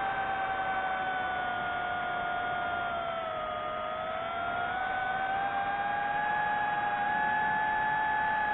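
Drone motors and propellers whining steadily. The pitch dips slightly about three to four seconds in, then rises a little and holds as the throttle changes.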